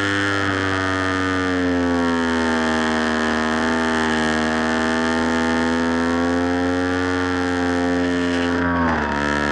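Electric motor and propeller of an FPV Raptor RC plane running under power: a steady whine whose pitch sags slightly midway, then dips sharply near the end as the throttle is eased.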